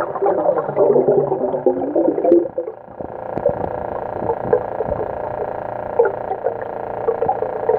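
Muffled sound heard underwater in a swimming pool: a steady hum with irregular burbling and gurgling, busiest for the first two and a half seconds, then scattered clicks and ticks over the hum.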